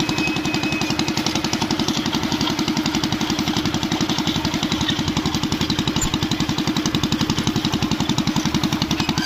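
Small engine of a grabagan rice-threshing machine running steadily with a fast, even beat.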